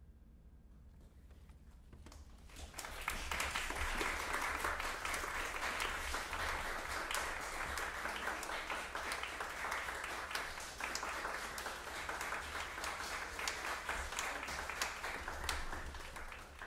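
Audience applauding after a brief hush, the clapping breaking out about two and a half seconds in and going on steadily.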